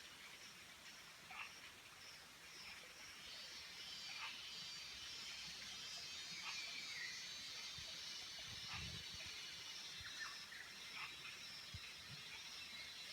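Faint outdoor nature ambience: a steady high-pitched trill, with short falling chirps every second or so and one longer falling call partway through.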